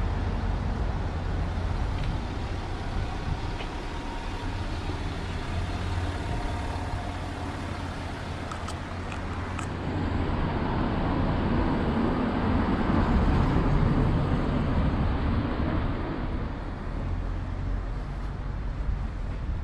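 Road traffic on a narrow town street: car engines and tyre noise, growing louder for several seconds past the halfway point as a vehicle passes close by, then easing off.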